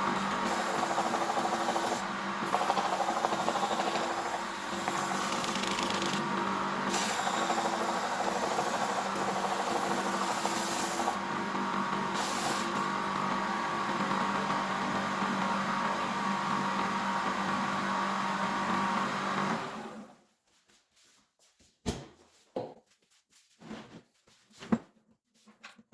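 Homemade belt grinder running, its motor humming steadily while the abrasive belt rubs against a workpiece. It shuts off about twenty seconds in, followed by a few faint taps.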